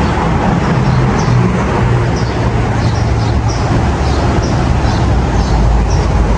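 Street traffic noise with a vehicle engine's low hum that swells near the end, and short bird chirps above it.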